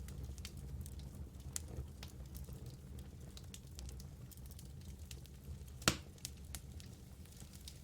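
Wood fire in a fireplace crackling, with many small scattered pops over a low steady rumble and one sharp, louder pop about six seconds in.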